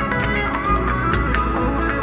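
Live looped guitar music: layered, sustained guitar parts with a recurring percussive hit.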